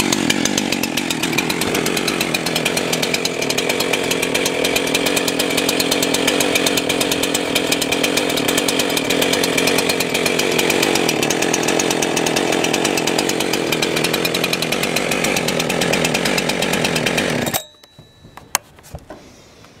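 Jonsered 2165 two-stroke chainsaw running steadily, then shut off abruptly near the end, followed by a few faint clicks.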